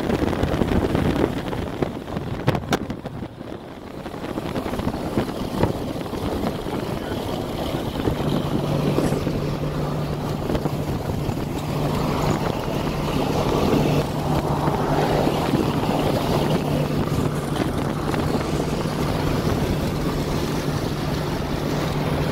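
Wind and road noise inside a vehicle travelling at highway speed with the side window open. A steady low hum joins about eight seconds in.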